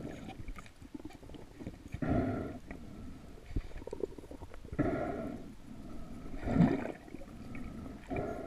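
A spearfisherman breathing through a snorkel: hollow breaths in and out, one every couple of seconds.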